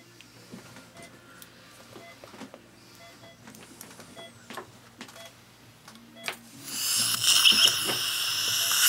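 Faint clicks of metal instruments over a low hum, then about seven seconds in a surgical dental handpiece starts up at the implant site with a loud, steady, high-pitched whirr as it drills.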